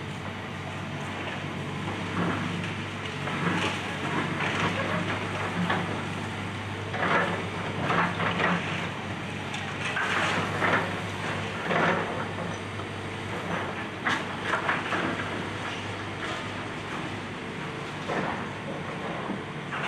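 Excavator's diesel engine running steadily under irregular crunching and clattering of demolition debris, the clatters thickest in the middle.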